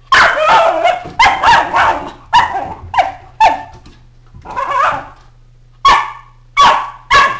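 A schnauzer barking excitedly: a run of about ten loud, unevenly spaced barks, the first one longer.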